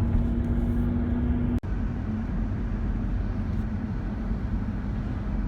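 Steady low rumble of a car driving, heard from inside the cabin: road and tyre noise with a steady hum. The hum stops at a brief break in the sound about a second and a half in.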